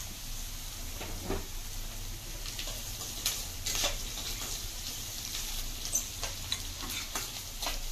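Diced vegetables and cashews sizzling as they fry in oil in a kadai, with a perforated metal spatula scraping and clinking against the pan a few times as they are stirred.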